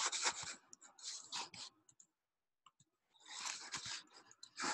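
Stylus writing by hand on a tablet surface: short scratchy strokes in a burst lasting about a second and a half, another a few seconds in, and a louder one starting near the end.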